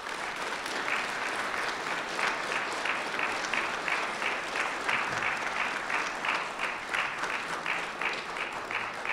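Small audience of a few dozen people applauding steadily.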